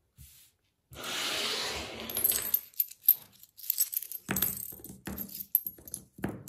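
Flat steel washers used as pattern weights, jingling together in the hand and then clicking down one after another onto a paper pattern.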